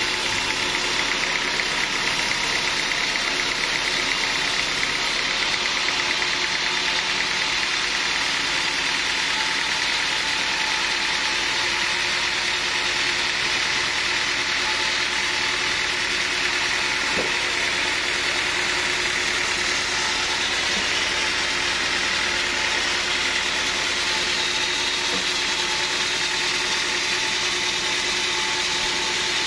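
Sawmill machinery running steadily: a continuous mechanical noise with a steady hum and no breaks.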